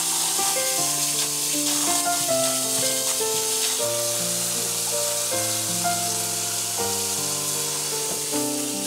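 Running tap water splashing steadily over long eggplants in a stainless steel sink, as they are rinsed by hand, with background music of changing held notes beneath it.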